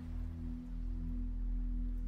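Singing bowl ringing in a steady drone of a few held low tones.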